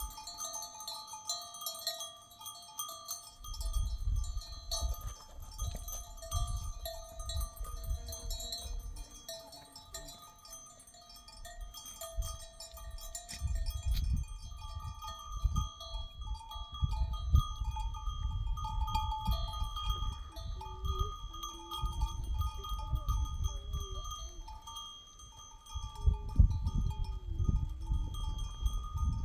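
Livestock bells on a grazing flock of sheep ringing and tinkling continuously, with a low rumbling noise that comes and goes. A few bleats sound in the last third.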